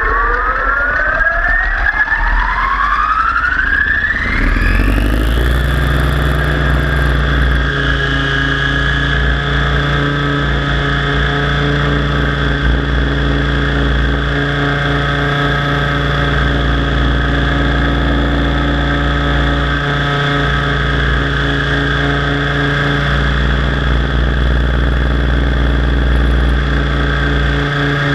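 T-Rex 700 DFC RC helicopter's motor and rotor head spooling up, a rising whine over the first five seconds or so, then running at a steady head speed.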